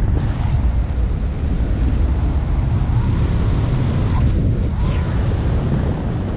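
Wind buffeting the microphone in flight, a steady deep rumble with no engine note: the paramotor's engine has run out of fuel and it is gliding.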